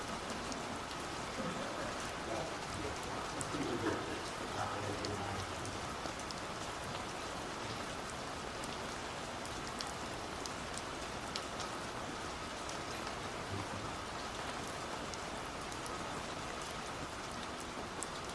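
Steady, even hissing noise with scattered faint ticks throughout.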